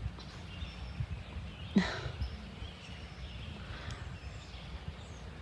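Outdoor ambience: a steady low rumble with faint bird calls, and one short sharp sound a little under two seconds in.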